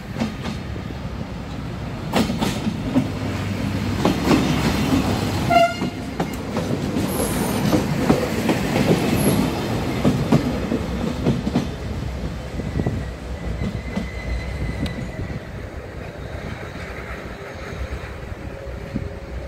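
CFR Siemens Desiro diesel multiple unit passing close by, its wheels clicking over the rail joints, with a very short high tone about five and a half seconds in. The rumble is loudest as it passes, then fades over the last several seconds as the train runs away.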